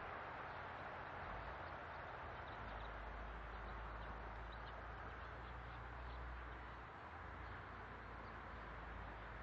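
Quiet, steady outdoor background hiss with a few faint, short high chirps through the middle.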